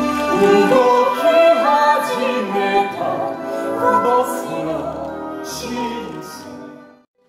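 A woman singing a theatrical, operatic-style solo with instrumental accompaniment. The music fades and cuts off near the end.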